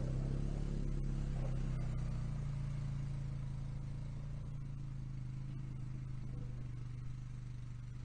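4x4 ATV engine running steadily while towing a log trailer, slowly fading as the quad drives away.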